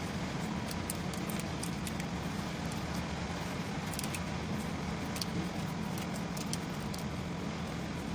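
Small scattered clicks and rattles of a wiring harness and its plastic clips being handled, over a steady low background hum.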